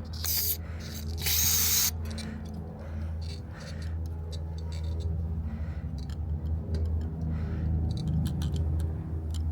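Two short hissing blasts from a spray nozzle aimed into a lawn-mower carburetor, about half a second and a second and a half in, the second longer and louder. Light clicks and scrapes of small tools on the carburetor follow, over a steady low hum.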